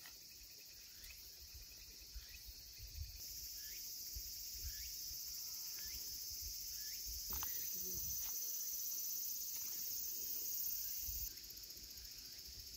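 Chorus of summer insects, a steady high-pitched buzz. It grows louder about three seconds in, louder again about seven seconds in, and drops back shortly before the end.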